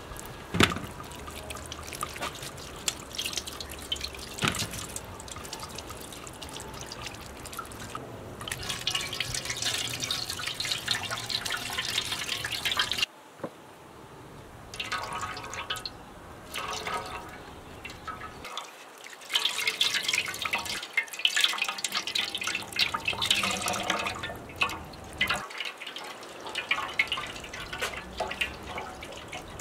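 Water poured in a thin stream from a large jug into an aluminium basin, splashing as peeled potatoes are rinsed in it by hand. The pouring stops and starts several times, with a few sharp knocks in the first seconds.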